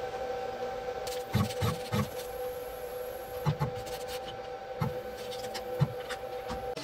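Steady two-tone electrical hum from the stopped CNC router. Over it come several light knocks and rubbing as a hand works a white strip loose from around the router bit.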